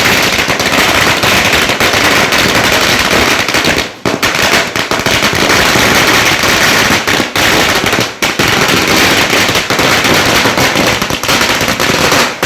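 A Kannan Crackers 1000-wala firecracker string bursting: a loud, continuous rapid crackle of overlapping bangs, with brief lulls about four and eight seconds in.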